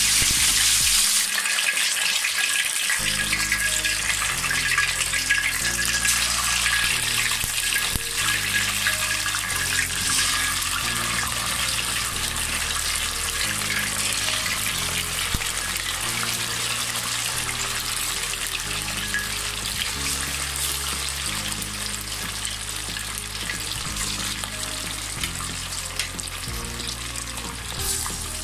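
Chicken pieces deep-frying in hot oil in a wok: a loud, steady sizzle, strongest about a second in just after the pieces go in, then slowly easing. Background music plays underneath.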